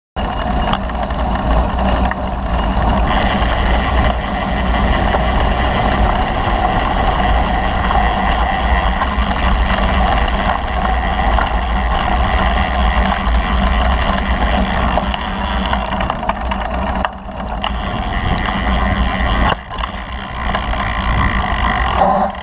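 Steady wind rumble on the microphone and tyre noise from riding along a gravel path. The sound drops briefly twice near the end.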